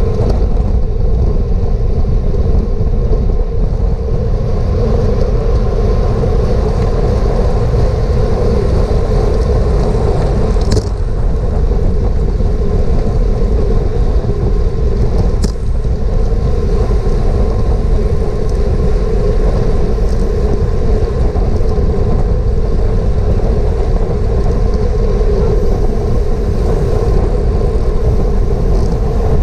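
Steady rush of wind buffeting a bicycle-mounted GoPro at race speed, with the rumble of tyres on the road underneath. Two short sharp clicks, about 11 and 15 seconds in.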